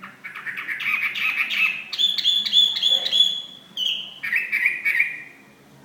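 Chinese hwamei (melodious laughingthrush) singing a loud, varied song of rapidly repeated notes, with a run of clear repeated whistles about two seconds in; the song stops shortly before the end.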